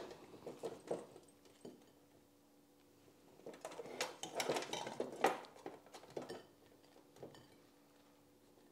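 Light clicks and knocks of the Ninja Foodi's metal grill and panini press attachment being opened and handled, with a busier stretch of soft rustling and knocking in the middle as a bread roll is set onto the ridged grill plate.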